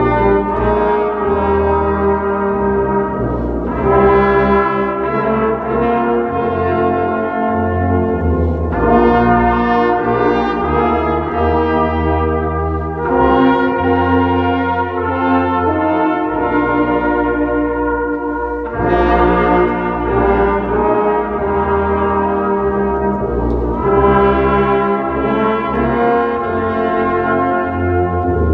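Brass music: several instruments holding full chords over a deep bass line, the harmony moving in phrases of a few seconds.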